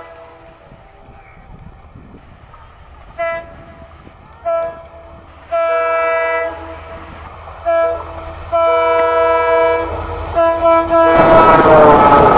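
EMD WDG-4 diesel locomotive sounding its multi-tone horn in a run of short and long blasts as it approaches at speed. About eleven seconds in, the locomotive and train rush past loudly and the horn's pitch drops as it goes by.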